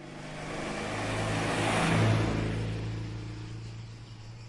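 A motor vehicle's engine passing by, rising to its loudest about two seconds in and then fading away.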